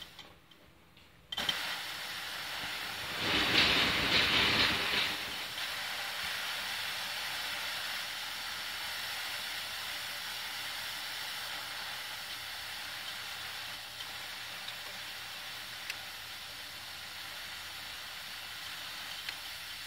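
A fine jet of mist spraying upward from a brass nozzle, hissing steadily. The hiss starts suddenly about a second and a half in and is loudest from about three to five seconds in before settling.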